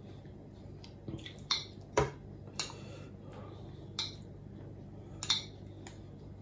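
Metal spoon clinking and scraping against a glass bowl and a metal baking tin as thick meat sauce is spooned out: about half a dozen separate knocks, over a faint steady low hum.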